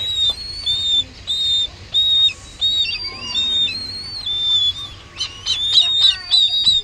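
Downy raptor chicks begging while being hand-fed: a string of high, thin calls, each about a third of a second long, about two a second, growing faster and overlapping about five seconds in.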